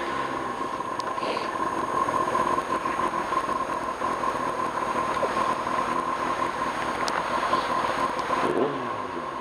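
1995 Kawasaki Ninja ZX-6R's inline-four engine running under way, with a steady hiss of wind and road noise and a constant high whine. Near the end the revs drop.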